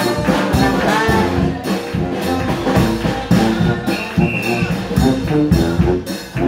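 New Orleans second line brass band playing up close, horns, saxophone and sousaphone over a marching drum beat.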